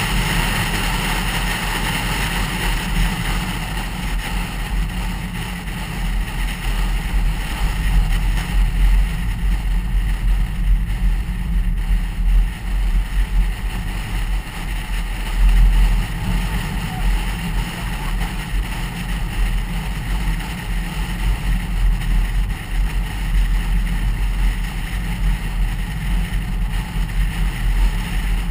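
Car driving at steady road speed, heard from inside the cabin: an even, low rumble of engine and tyres on asphalt.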